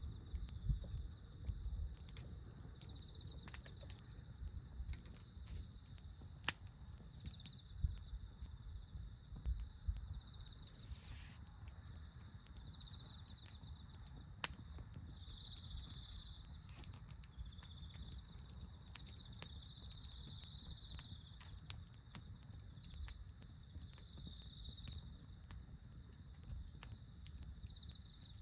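Steady, high-pitched chorus of crickets or similar night insects, with a second insect trilling on and off slightly lower. Beneath it a campfire crackles with scattered sharp pops, a few louder ones in the first ten seconds, over a low rumble.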